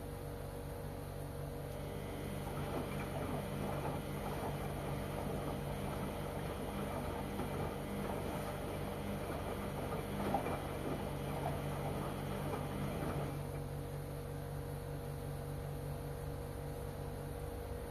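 LG washing machine running a wash: the drum turns for about eleven seconds with water and clothes sloshing inside, then stops while the machine's low hum carries on.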